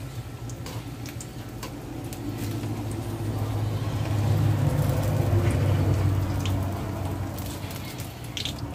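Spring rolls deep-frying in hot oil in a wok, with scattered clicks as metal tongs turn them against the pan. A low steady rumble runs underneath and swells in the middle.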